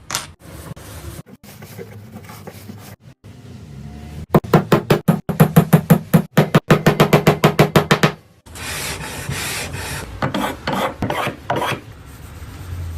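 Wood being rasped by hand in rapid back-and-forth strokes, about five a second, from about four seconds in to about eight seconds, followed by rougher, less even scraping.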